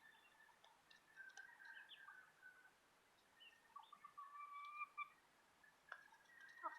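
Faint soft calls from chickens: a few short notes and one longer, held note about two-thirds of the way in, with a few light clicks.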